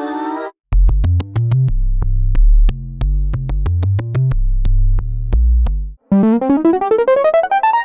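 Omnisphere software synthesizer playing a clicky analog-style bass patch modelled on the Oberheim OB-Xa: a line of low bass notes, each starting with a sharp click. A held chord cuts off about half a second in, and near the end a different synth sound enters, gliding steadily upward in pitch.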